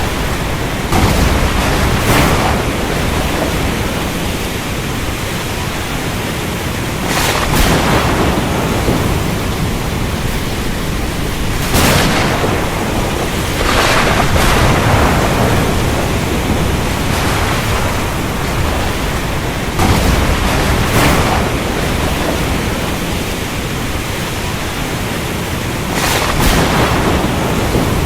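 Steady rain falling, with thunder cracking and rumbling every few seconds: about eight swells, the sharpest roughly 12 and 26 seconds in.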